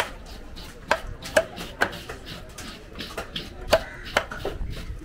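Heavy cleaver chopping cobia flesh into cubes against a wooden chopping block: sharp separate chops about every half second, some with a short ring, and a pause of about a second in the middle.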